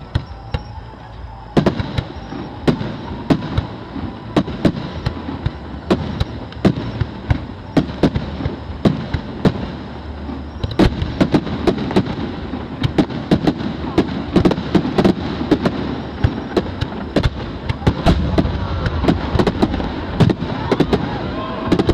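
Fireworks display: aerial shells bursting in a rapid series of bangs and crackles over a low rumble. The bangs come thicker about halfway through and build to a dense, louder volley near the end.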